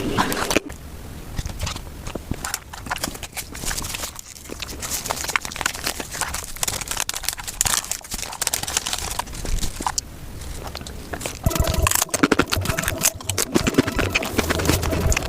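Eating sounds sped up about five times: a dense run of quick crunching and crinkling clicks, getting louder about eleven seconds in.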